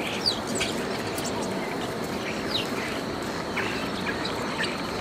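European starlings giving short scattered chirps and whistles, several a second at times, over a steady background hum of city noise.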